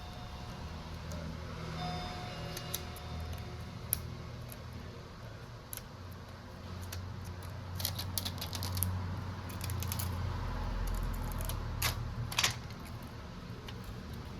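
Small hand tools and parts clicking and tapping on a repair bench in scattered bursts, loudest about twelve seconds in, over a steady low hum. A brief tone sounds about two seconds in.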